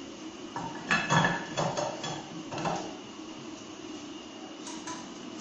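Clatter of hard parts being handled: a run of knocks and clicks about one to three seconds in, then it goes quieter.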